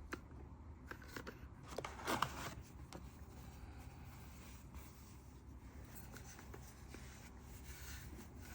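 Faint handling noises while unboxing a sound level meter: small clicks and rubbing of packaging and the device, with a louder rustling scrape about two seconds in.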